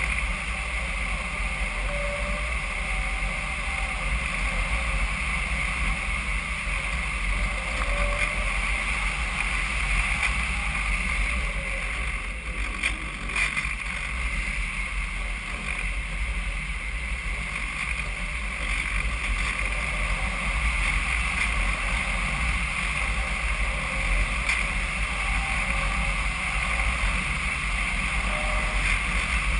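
RC model airplane's motor and propeller running steadily in flight, heard from a camera on the plane, with wind rushing over the microphone.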